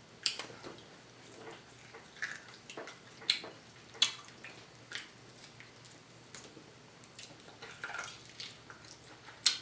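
Wet mouth clicks and smacks of someone chewing and gnawing meat off a steak bone, in scattered, uneven bursts.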